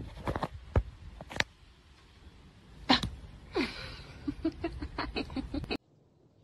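A German Shepherd sneezing: a sharp sneeze, then a quick run of short snorting pulses that stops abruptly.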